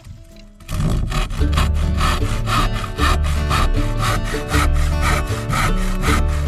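Music with a steady rhythmic beat that starts loud under a second in: regular scraping strokes about twice a second over held chords and a changing bass line.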